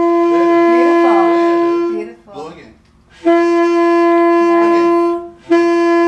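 A student's saxophone holding one steady note on the same pitch three times: about two seconds, a pause of about a second, about two seconds more, then a third start near the end. These are basic sound-production long tones.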